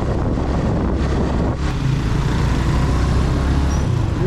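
Suzuki GS 150 SE motorcycle's single-cylinder engine running steadily while riding, under a rush of wind noise; the engine note shifts about four seconds in.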